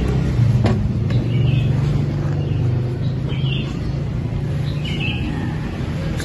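Steady low rumble with a click about a second in, and three short bird chirps spread through it.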